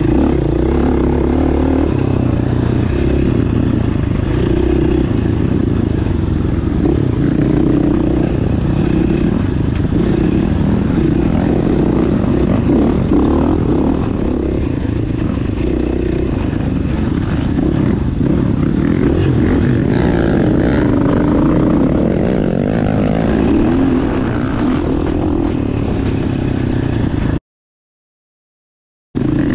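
GasGas dirt bike engine running steadily while the bike rides along a rough trail, with no big revs. The sound cuts out completely for about two seconds near the end.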